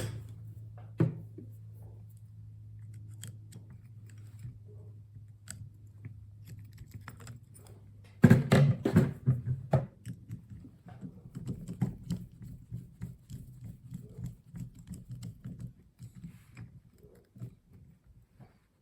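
Handling noises of a wire being fastened to a porcelain keyless lampholder's terminal: irregular small clicks and taps, with a louder flurry of clicks and scraping about eight seconds in, over a low steady hum.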